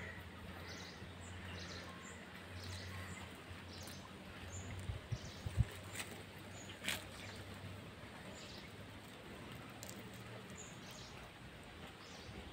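Outdoor ambience with small birds chirping in short, repeated high calls, over a faint low hum, and a few sharp knocks about halfway through.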